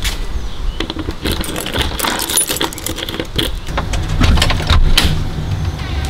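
A bunch of keys jangling as a key works a camper door's lock, with a run of sharp metallic clicks and rattles. A low rumble builds in the second half.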